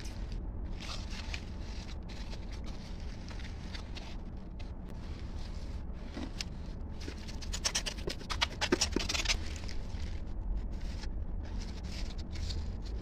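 Gloved hands scraping and rubbing wet cement, in scattered short scratchy strokes that come thickest about eight to nine seconds in, over a steady low hum.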